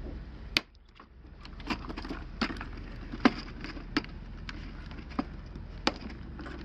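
Irregular sharp plastic clicks and taps, eight or so, as a rubber shoe is worked onto a Hayward Navigator pool cleaner's plastic body.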